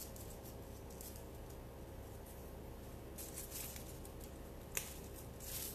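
Soft rustling of leaves and flower stems as a bouquet of peonies and greenery is handled and turned, in a few short bursts, with one sharp click a little under five seconds in, over a low steady hum.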